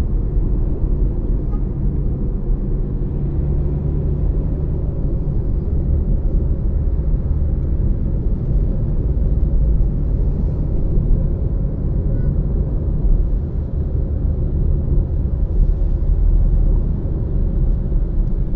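Steady low rumble of a motor vehicle, unchanging throughout, with no siren.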